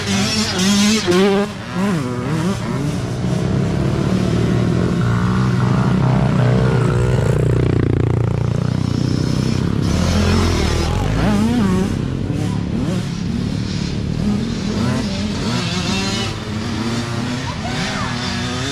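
Several dirt bike engines, mini bikes among them, running and revving up and down, their pitch rising and falling constantly as the throttles open and close, with one deep drop and climb in pitch about halfway through.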